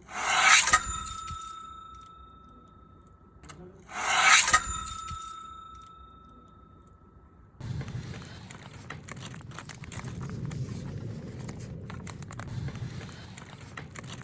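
A layered sound-effect demonstration: two sharp strikes about four seconds apart, each ringing on with a clear tone that dies away over a few seconds, then a steady rough rubbing, scraping noise with small crackles.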